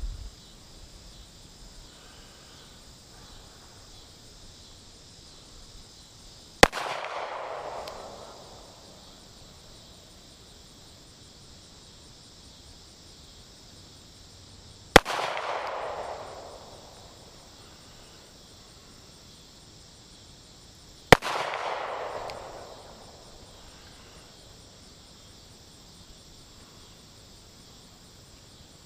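Three single handgun shots fired several seconds apart, each a sharp crack followed by about a second of echo dying away, with a fourth shot at the very end. Insects buzz steadily underneath.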